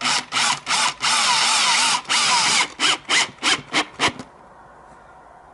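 Cordless drill driver driving screws into a uPVC window frame to fix a cockspur handle: a few short bursts, a longer run of about two seconds, then a quick string of short blips, stopping about four seconds in.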